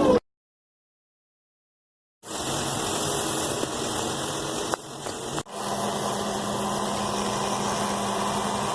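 About two seconds of dead silence, then steady road and engine noise from inside a moving car, with two brief dips in the middle.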